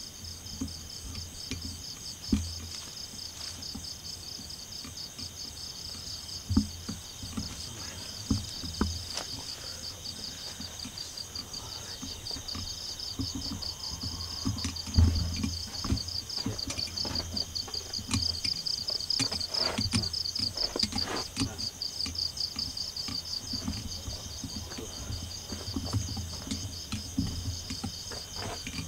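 A steady chorus of night insects, with a fast pulsing trill over continuous high-pitched tones. Irregular low thumps and knocks sound through it, the loudest about six and fifteen seconds in.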